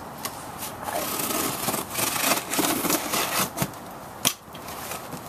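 Cardboard shipping box and packaging being handled and opened: irregular rustling and scraping, with a few sharp taps, the loudest about a second before the end.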